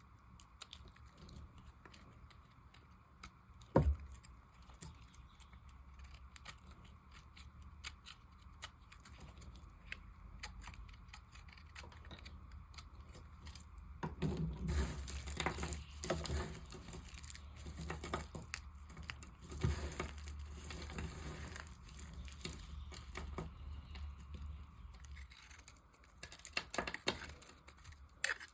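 A knife cutting and carving dry soap: fine crackling and crumbling with small clicks, growing louder and denser about halfway through. A single sharp knock comes about four seconds in.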